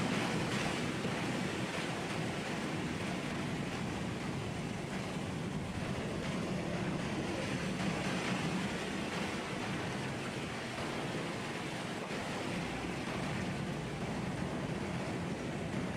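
Sea surf: a steady wash of waves on the shore, a continuous rushing noise that swells only slightly.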